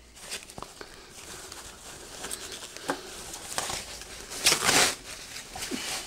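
Clear plastic wrapping crinkling and rustling as it is handled and pulled off, with a louder rustle about four and a half seconds in.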